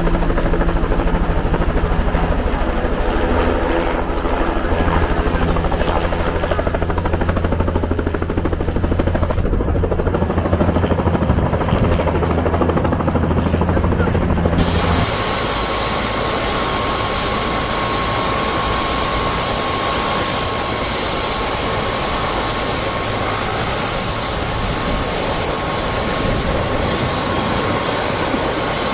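Turbine helicopter landing close by, its main rotor beating in a steady, fast rhythm. About halfway through, the sound changes abruptly to a steady high turbine whine over a hiss, with the helicopter running on the ground.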